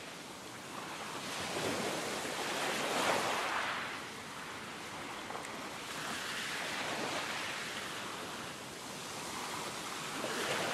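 Sea waves washing in and drawing back. The hiss swells and fades about three times, loudest about three seconds in.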